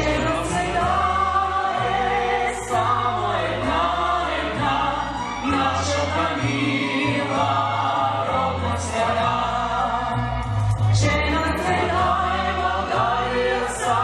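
A group of children singing together in chorus, with instrumental accompaniment under a steady, stepping bass line.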